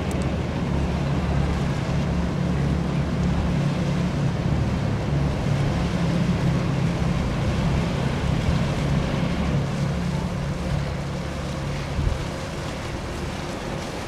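A boat's engine running with a steady low hum, over a wash of wind and water noise.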